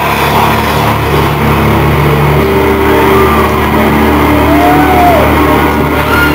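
Loud live industrial music: a distorted electronic drone with steady low tones under a dense noisy wash, with a few short synth notes that glide up and back down near the middle.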